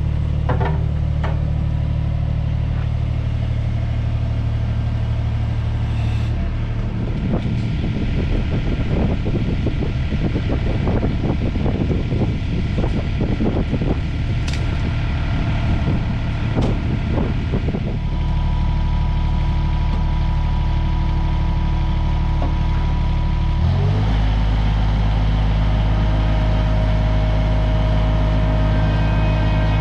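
Engine of a farm machine running steadily. It goes rough and clattering for about ten seconds in the middle, then speeds up with a quick rise in pitch near the end and holds the higher speed.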